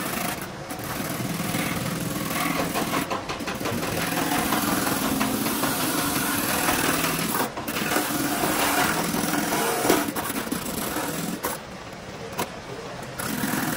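Handheld rotary buffer with a round abrasive disc grinding the rubber inner liner of a car tyre, running steadily with a continuous whirr. This is the roughening of the inside of the tyre around a sidewall cut before it is patched. The buffing eases off briefly near the end.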